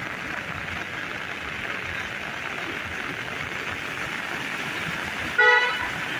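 Steady hiss of rain and water on a flooded street, broken about five and a half seconds in by one short vehicle horn toot, the loudest sound.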